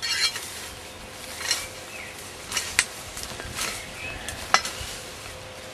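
Tall meadow grass rustling and brushing as someone wades through it, with irregular swishes and a few sharp crackles, the loudest about halfway and near the end.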